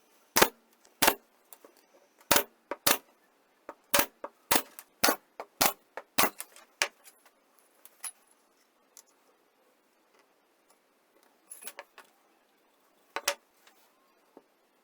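Hard objects knocking and clinking: about a dozen sharp knocks in the first six seconds, then a few more near the end.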